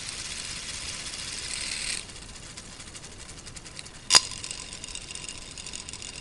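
Small electric motor driving a K'nex bus chassis through its plastic two-speed gearbox, a steady whir that drops in level about two seconds in. A single sharp click about four seconds in is the loudest sound.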